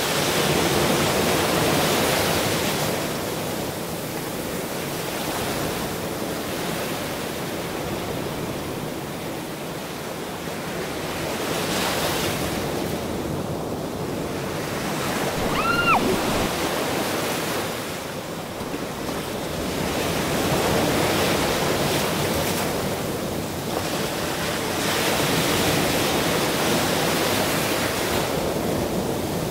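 Rushing river water around a raft, with wind buffeting the microphone; the noise swells and eases every few seconds. About sixteen seconds in, a short high tone rises and falls.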